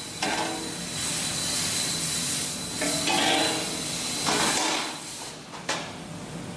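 CNC press brake working, with a hissing noise that swells and fades. Over it, a steel sheet clanks and rattles against the tooling as it is handled, and there is a sharp knock near the end.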